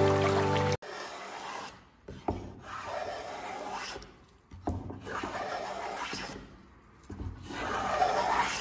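Metal hand plane shaving a wooden board: about four rasping strokes, each a second or more long, with short pauses between. Music cuts off under a second in.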